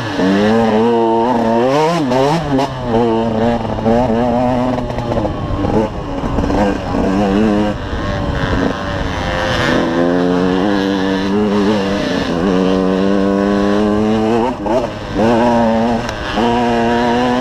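KTM 125 EXC two-stroke dirt bike engine revving hard and easing off as it is ridden over a rough trail, heard from the rider's helmet. Its pitch climbs and drops again and again in the first few seconds as the throttle is worked and gears change, then holds steadier for a few seconds past the middle before rising again.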